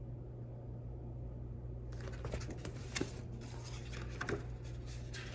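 Paper rustling and light taps as a picture book is handled and its pages turned, starting about two seconds in, with a couple of sharper taps; a steady low hum underneath.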